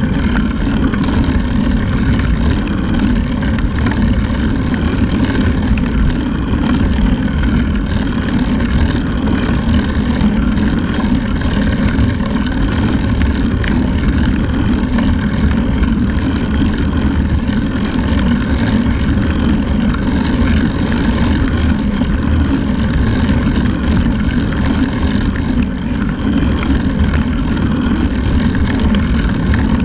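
Steady wind rush and buffeting on the microphone of a handlebar-mounted action camera, with the road bike rolling along at speed.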